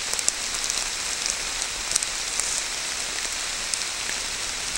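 Moderate rain falling steadily in woodland, an even hiss with scattered sharp ticks of single drops hitting close by.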